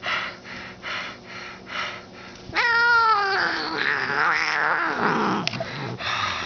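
A long-haired orange cat yowling and growling as he attacks. Short noisy puffs about twice a second give way, about two and a half seconds in, to a loud yowl that rises and then falls, followed by a rough growl.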